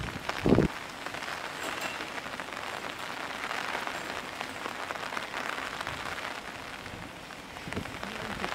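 Heavy rain pouring down in a steady hiss. About half a second in there is a short low thump.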